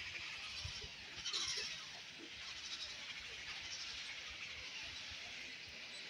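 Painted stork nesting colony: chicks' bleating begging calls over a steady high-pitched colony din, louder for a moment about a second and a half in.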